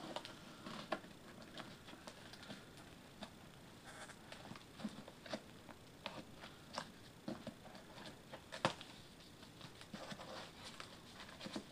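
A small knife slitting packing tape on a cardboard box, with irregular scrapes, taps and crackles of the cardboard as the flaps are worked open. The sharpest click comes about eight and a half seconds in.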